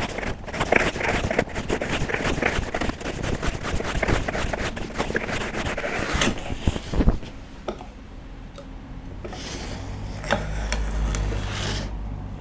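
Japanese replaceable-blade hand saw, laid flat in a guide jig, rip-cutting along the grain of a clamped board with quick back-and-forth strokes for about seven seconds, then stopping. A few sharp clicks follow as the thin cut strip is snapped loose.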